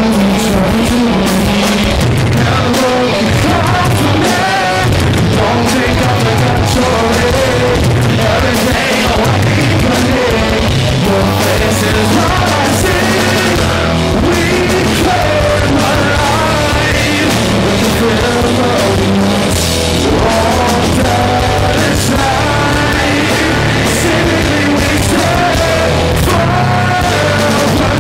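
A live metal band playing loud: electric guitars, bass and drums with a singer.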